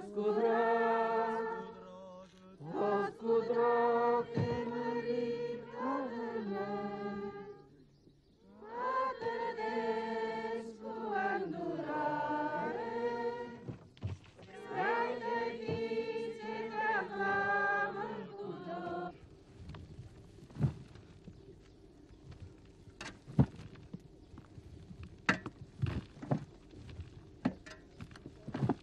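Voices singing a slow liturgical chant in phrases, stopping about two-thirds of the way through. Then come irregular thuds and knocks of shovelled earth landing in an open grave.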